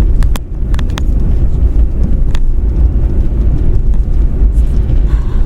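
Vehicle driving: a loud, steady low rumble, with several sharp clicks or knocks in the first couple of seconds.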